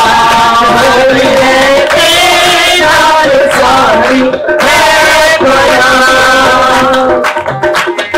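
A worship song sung over music, the melody held and bending in long sung lines. Sharp drum strokes come in near the end.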